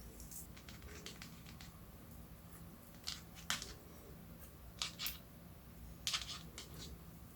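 Slime being mixed and pressed, giving scattered short sticky clicks and crackles, a few in quick clusters.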